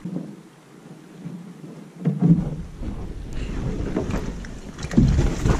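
Camera being handled and moved: muffled bumps, knocks and rustling with low rumbling wind noise on the microphone. It is quieter for about two seconds, then grows, with the loudest knocks near the end.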